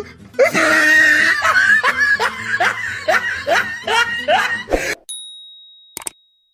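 A person laughing in a run of quick, repeated "ha" bursts, about two to three a second, used as a funny sound effect. It cuts off about five seconds in, leaving a thin high tone that fades away.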